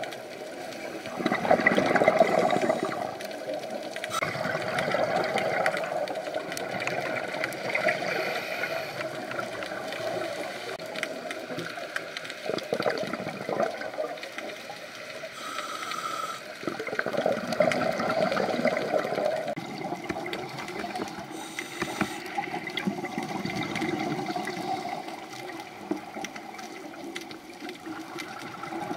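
A scuba diver's regulator breathing heard underwater: the rushing of each breath and the bubbling of exhaled air, swelling and fading in slow cycles every few seconds.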